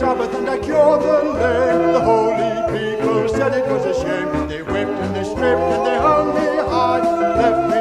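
Music: a vocal group singing a religious song in harmony, the voices held with vibrato over steady low accompanying notes.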